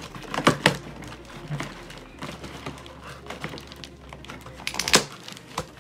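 Packing tape being peeled and pulled from a cardboard box, with crackling and a few sharp knocks of the cardboard, the loudest two about half a second in and another near the end.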